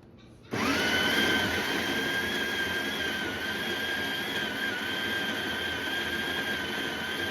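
A machine starts up suddenly about half a second in, rising in pitch briefly, then runs steadily with a high whine over a broad rushing noise.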